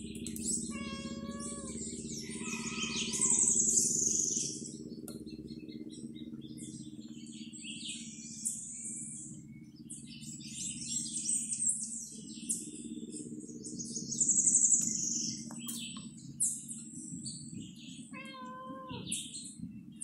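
Several birds singing and chirping in the trees, high quick calls overlapping throughout, with a few lower, drawn-out wavering calls near the start and again near the end. A steady low hum runs underneath.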